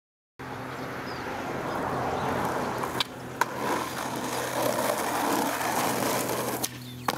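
Skateboard wheels rolling on rough asphalt, a steady rumble starting about half a second in, with two sharp clacks about three seconds in and another near the end.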